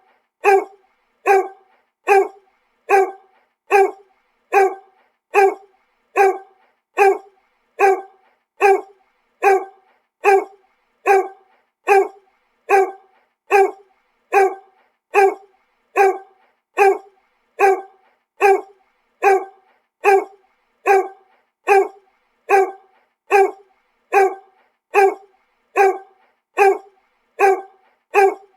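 A single dog barking over and over at an even pace, about one short bark every 0.8 seconds, each bark alike.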